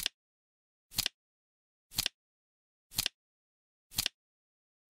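Flip-clock flap sound ticking once a second as the seconds digits turn, each tick a quick double click with silence between; five ticks.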